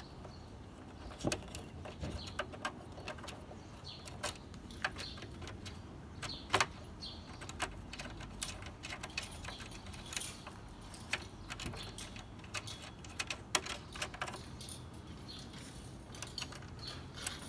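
Irregular small metallic clicks and taps as a bolt and nut are handled and fitted by hand through a steel mounting bracket on a plastic radiator fan shroud.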